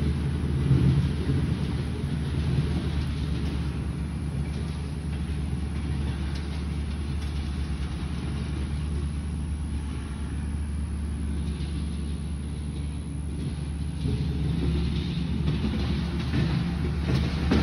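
An engine running steadily at low speed, an even low hum, on the machinery clearing the lot.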